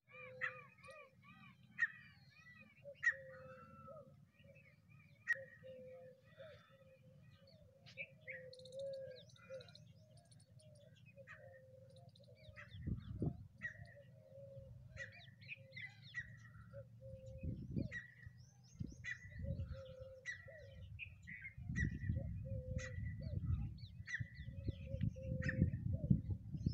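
Several birds calling in open farmland: sharp chirps and short arching calls repeat every second or so, over a steady broken hum lower down. From about halfway through, a low rumble comes and goes beneath them.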